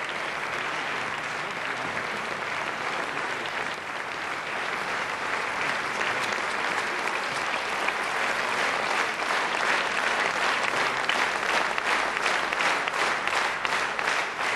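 Audience applauding, the applause building and falling into rhythmic clapping in unison, about three claps a second, in the second half.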